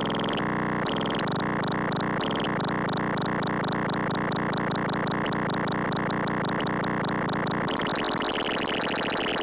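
CubuSynth Engine dual analog oscillator module (3340-chip VCOs) sounding a dense, buzzing synth tone with a fast rhythmic pulsing in its upper range from internal modulation. Its timbre shifts near the end.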